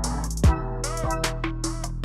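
Background music with an electronic drum beat: a kick drum and short bright percussion hits over held synth tones.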